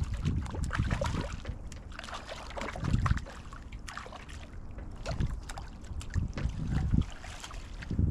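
Small open boat on choppy water: wind buffeting the microphone and water slapping the hull make an uneven low rumble. Scattered knocks and clicks of gear being handled in the boat come through it, the heaviest about three seconds in and again near seven seconds.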